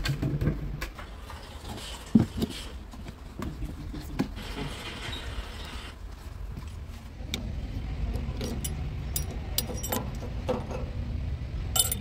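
Knocks and clicks of a plastic oil bucket, funnel and screw cap being handled, with one loud knock about two seconds in. From about seven seconds on, a steady low rumble sits under more light clicks.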